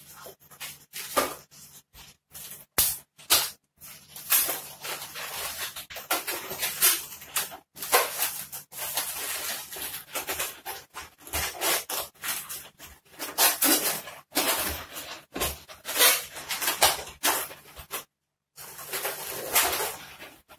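Latex modelling balloons squeaking and rubbing against each other in irregular short bursts as they are twisted and shaped by hand.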